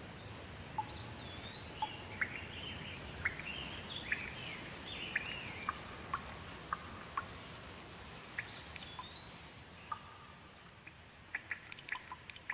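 Steady rain hiss with scattered drops ticking, more of them near the end, while a songbird sings a short whistled phrase about two seconds in and repeats it around eight seconds.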